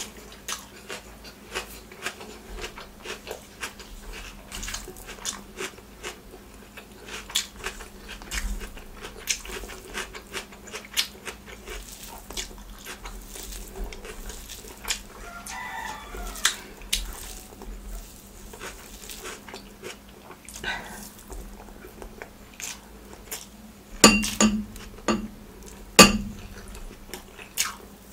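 Close-miked eating sounds: chewing with wet mouth clicks, and fingers squishing and mixing rice with curry. There are two louder sharp clicks near the end.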